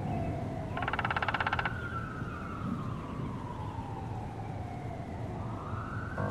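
Emergency vehicle siren wailing, its pitch sliding slowly down and back up twice, over a low rumble, with a short buzzing pulsed tone about a second in.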